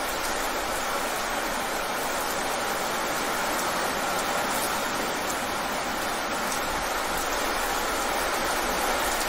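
Rain falling fast on wet pavement: a steady, even hiss of countless drops splashing.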